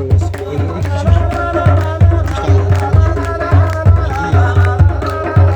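Music with a steady, deep drum beat under a wavering melody.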